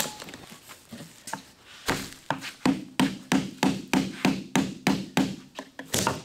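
Sharp taps on the ratchet-strapped windshield frame and glass, starting about two seconds in and going on steadily at about three a second.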